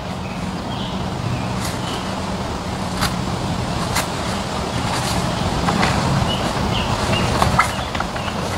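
Sharp clicks and knocks of metal poles being handled on a rooftop tent and roof rack, a few of them a second or so apart, over a steady low hum. Birds chirp briefly now and then.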